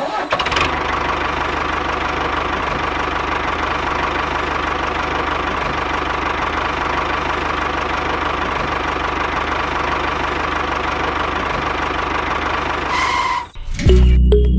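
Small motor of a miniature model tractor running steadily with a fast, even rattle, cutting off suddenly near the end as background music comes in.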